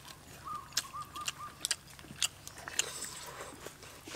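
People eating roasted quail up close: crunching and chewing, with a string of sharp clicks as the small birds are torn apart and bitten. A bird calls four short notes in the background in the first second or so.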